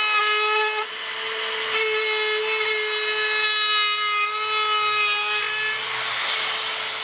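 Handheld trim router running at high speed as it is worked along the edge of a wooden board: a steady high-pitched motor whine over a hiss of cutting, dipping briefly just under a second in.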